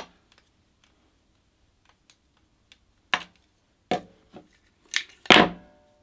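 Thin florist's wire being handled and wrapped: faint clicks, then several sharp knocks and clicks against the table. The loudest knock, just after five seconds in, has a brief ringing tail as the wire spool is set down on the table.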